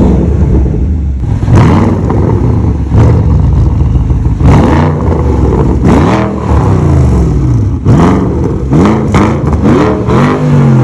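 Porsche Panamera Turbo's 4.8-litre twin-turbo V8 revved again and again while standing, through an exhaust whose muffler internals have been reworked to make it louder. Each rev rises and falls in pitch, and several come with sharp cracks.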